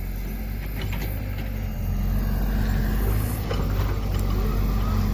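Excavator engine running steadily with a low hum, getting louder about two seconds in, with a few faint clicks.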